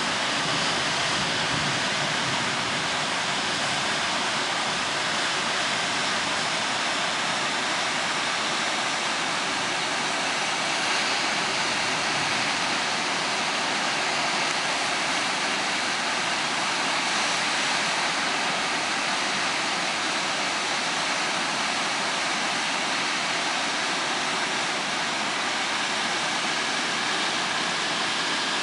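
Swollen mountain stream in flood, its churning white water rushing over rocks in a steady, unbroken rush.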